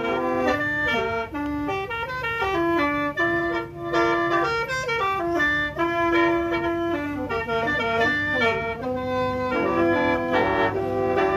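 Khaen, the Lao bamboo free-reed mouth organ, played solo: a melody of held and moving notes with several pipes sounding together.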